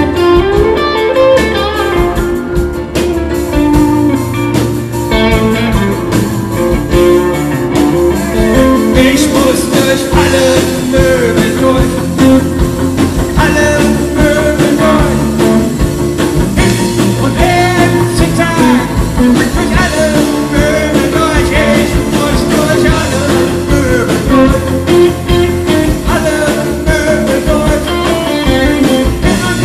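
Live rock band playing: electric guitar, bass, drums and keyboard, with a man singing lead into a microphone.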